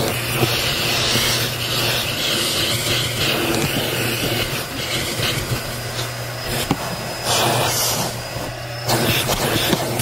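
Bissell Helix vacuum running with its crevice tool drawn over car floor carpet: a steady motor hum and rushing air through the nozzle, with scattered small ticks of grit and wood bits being sucked up.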